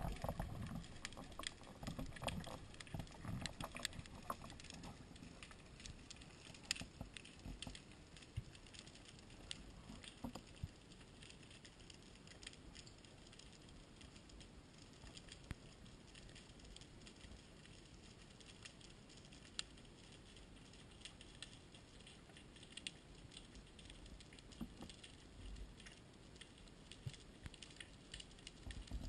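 Faint underwater ambience: a steady hiss with scattered sharp clicks and crackles throughout, and low rumbling water and movement noise in the first few seconds.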